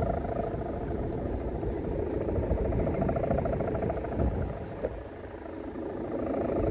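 Strong wind rumbling on the microphone, with a steady pulsing hum over it that fades a little about five seconds in and comes back.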